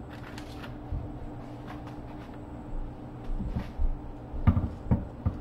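Chopped broccoli being scooped up by hand from a wooden cutting board: rustling and a few short knocks on the board, a small cluster of them in the second half, over a steady low kitchen hum.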